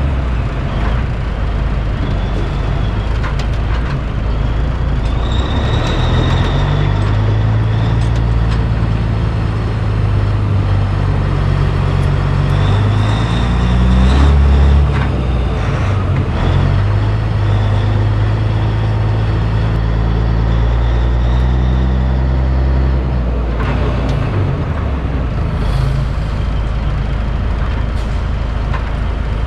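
Heavy diesel engine of a cabover Peterbilt 362 semi truck running under way, its pitch stepping up and down as it shifts through gears, with a short louder pull around the middle.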